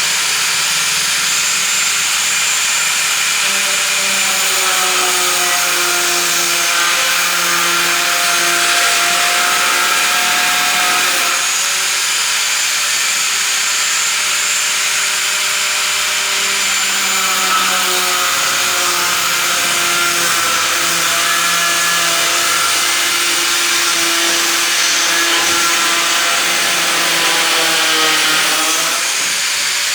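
A power tool running continuously and loudly, its pitch drifting slowly down and back up a few times.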